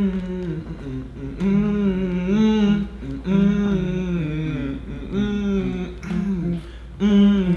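A man humming a tune with his mouth closed around a marshmallow, in short phrases of held notes with brief breaks between them.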